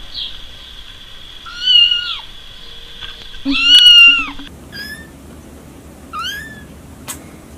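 A grey kitten meows twice, the second meow the loudest. Then very young kittens give several short, thin, high mews that rise in pitch.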